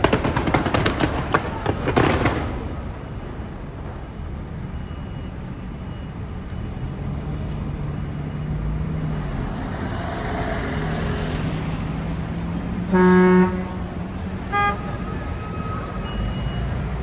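A dense burst of crackling pops for the first two seconds, then steady street traffic noise with a vehicle horn honking loudly once about thirteen seconds in and briefly again a second and a half later.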